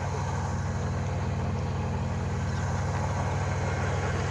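Vehicle engine idling steadily, a low, even running note.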